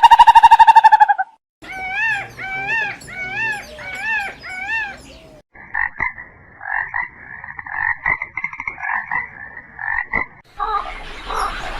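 Animal calls in short separate clips, one after another. A buzzing pitched call cuts off about a second in. Then come about five repeated rising-and-falling calls, then a long rapid pulsing buzz of the croaking kind.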